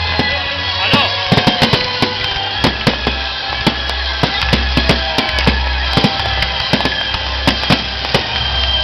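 Fireworks crackling and popping in quick, irregular cracks, with music playing underneath.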